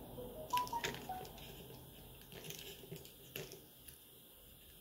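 Light clicks and taps of tweezers and small plastic and metal smartphone parts being handled, with a few short squeaks in the first second or so. The sharpest click comes about half a second in, another about three and a half seconds in.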